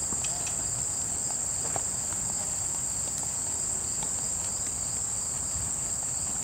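Steady high-pitched chorus of insects, an unbroken shrill drone with a fainter second tone below it.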